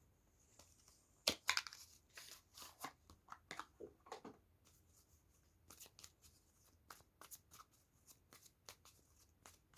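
Tarot cards being shuffled and handled: a quick flurry of card flicks and taps in the first few seconds, then sparser light ticks as cards are drawn.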